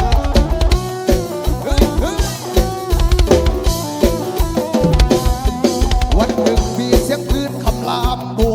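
Live band music in an instrumental break: a drum kit plays a busy beat of kick and snare under a lead melody line that bends and slides in pitch.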